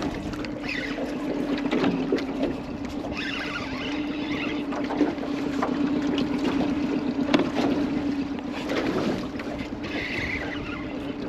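Small outboard motor on an aluminium fishing boat running steadily, a constant low hum, with wind and choppy lake water around the hull.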